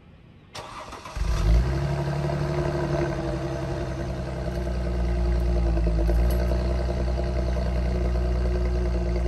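Mercedes-Benz W204 C350's 3.5-litre V6 starting: a brief crank about half a second in, the engine catches with a quick flare of revs, then settles into a steady idle.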